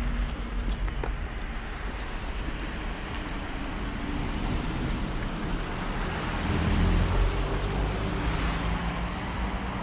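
Steady road traffic noise, a low rumble with hiss, swelling about seven seconds in.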